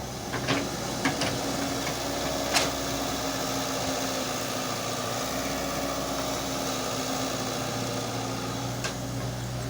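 Heavy machine engine running steadily at an even pitch, with a few short sharp knocks, the loudest about two and a half seconds in.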